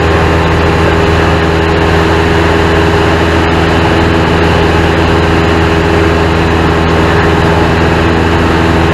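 Light aircraft's piston engine and propeller running steadily in flight: a loud, constant drone with steady low hum tones and no change in pitch.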